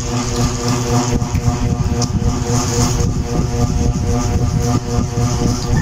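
Steady mechanical drone: a constant hum over a low rumble, unchanging throughout.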